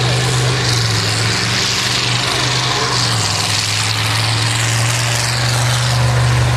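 Tractor engine running steadily at a constant low hum, the pitch shifting slightly about three seconds in.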